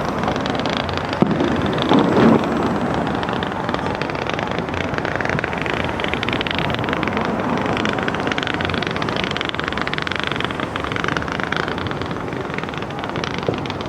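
Fireworks finale: a continuous dense crackling and popping of many shells, with louder bangs about one second and two seconds in.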